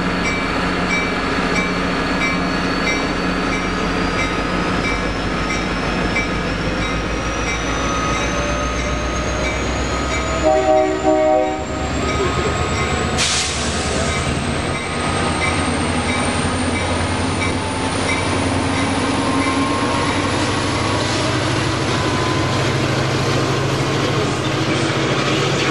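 Coaster F40PHM2-C diesel locomotive pulling out and accelerating, its engine running steadily under load. About ten seconds in it gives one short multi-note horn blast, and there is a sharp click a few seconds later. A thin high whine rises slowly in pitch as the train gathers speed, and bilevel cars roll past near the end.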